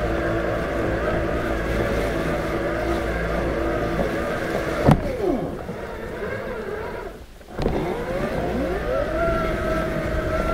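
Robotic lawn mower's electric motors whirring steadily. About five seconds in there is a click and the whir falls in pitch and dies almost away, then it rises in pitch back to a steady whir as the mower sets off in a new direction.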